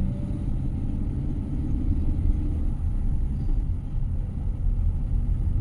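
Steady low rumble of a vehicle's engine and tyres, heard from inside as it climbs a hill road.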